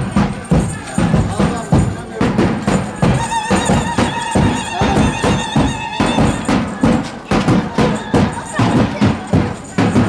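Traditional folk dance music with a steady drum beat, about two strong hits a second. A melody instrument holds a long, wavering note through the middle.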